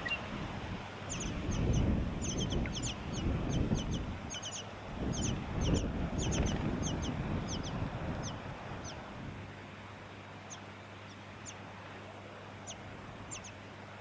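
Tawny-crowned Honeyeater nestlings giving thin, high begging cheeps, each a quick downward slide, several a second for about the first nine seconds, then only a few scattered ones. Wind rumbles on the microphone until about nine seconds in.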